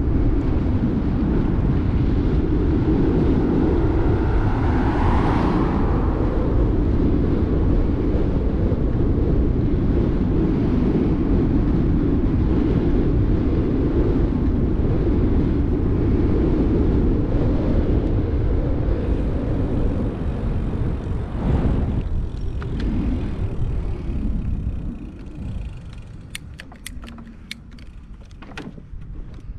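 Wind rushing over the microphone of a camera on a moving bike, a steady low buffeting. Near the end it eases off and a quick run of sharp clicks follows.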